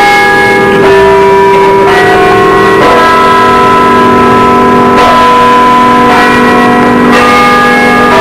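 Bells ringing in a slow sequence, a new note struck roughly every second and each ringing on under the next, so several pitches overlap.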